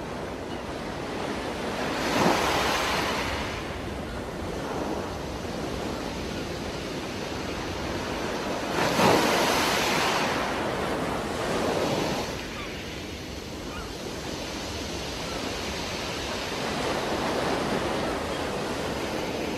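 Steady underwater rushing noise through a diving camera's housing, swelling into louder gushes of a diver's exhaled regulator bubbles about two seconds in and again around nine and twelve seconds in.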